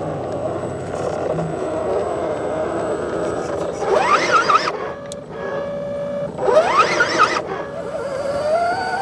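Electric motor and gearbox of a radio-controlled crawler truck whining under load, the pitch wavering with the throttle. Twice, about four seconds in and again near seven seconds, the whine sweeps sharply up in pitch and drops back as the throttle is opened.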